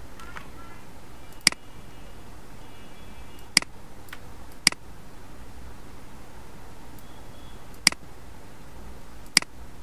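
Computer mouse clicking: five sharp single clicks, a second or two apart, over a steady low background hum.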